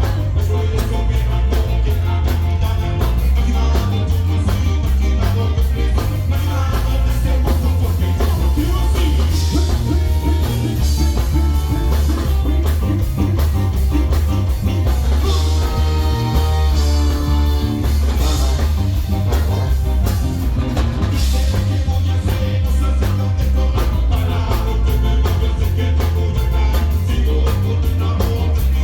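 Live ska band playing loudly, with heavy bass, drum kit, guitar and singing over an upbeat rhythm.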